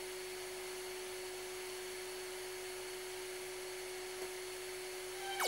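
Canister vacuum cleaner running steadily, a constant motor hum with a steady whine. Right at the end a sudden loud sound cuts in, its pitch falling steeply.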